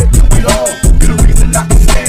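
Hip hop track with heavily boosted bass, rapid steady hi-hat ticks and a rapped vocal.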